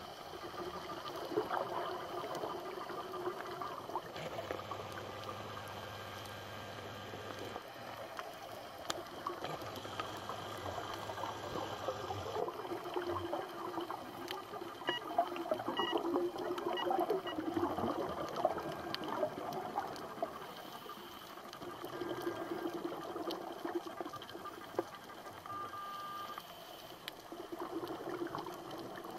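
Continuous watery crackling and trickling, a dense patter of fine ticks that swells and eases.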